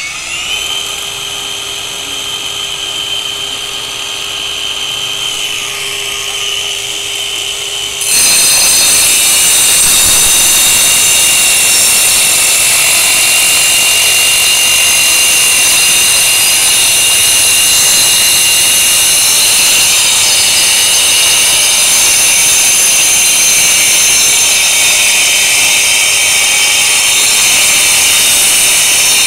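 Boda brushless twin-blade wall chaser running free with a steady high whine. About eight seconds in it gets much louder and harsher as its blades grind a groove into a brick wall.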